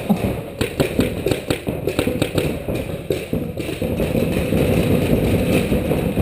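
Paintball markers firing rapid, irregular shots for about the first three and a half seconds, then steadier background noise.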